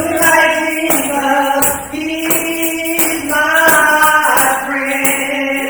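Gospel singing with a tambourine jingling in time and no other instruments: held sung notes that step from pitch to pitch over a steady tambourine beat.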